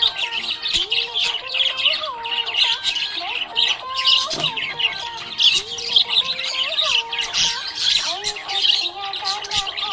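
Budgerigars chattering and chirping without a break: a dense, fast warble of high chirps.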